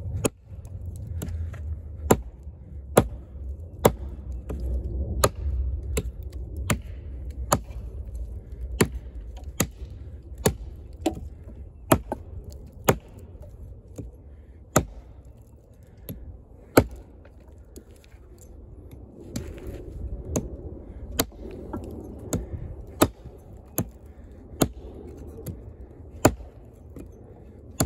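Kobalt 14-inch camp axe with a hickory handle chopping into a dead, partly rotten log. The sharp chops come steadily about once a second, with a short pause a little past halfway. The bit is biting into the wood rather than bouncing off.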